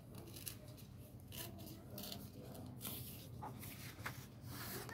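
Sheet of craft paper rustling and crinkling as hands fold and crease it: a series of short, faint rustles.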